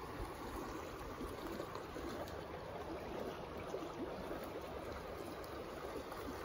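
A small mountain stream running steadily over a shallow gravel and rock riffle.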